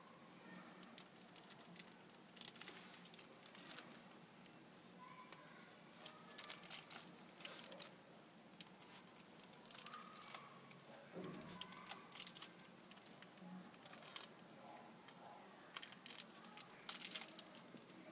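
Faint clicks and plastic crinkling from handling a small infrared remote and pressing its membrane buttons, in short clusters every couple of seconds.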